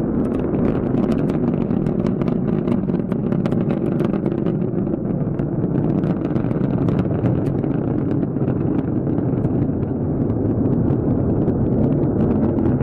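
Rocket engines firing in flight: a loud, steady low rumble with continual crackling.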